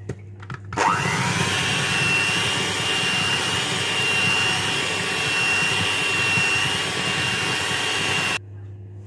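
Electric mixer beating cake batter: the motor spins up with a rising whine about a second in, runs steadily with a high whine over a churning rattle, and cuts off suddenly near the end.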